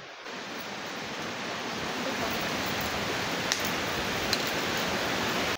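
Wind rustling through palm fronds and tree leaves, a steady even hiss that grows a little louder over the first second or two, with two faint short ticks near the end.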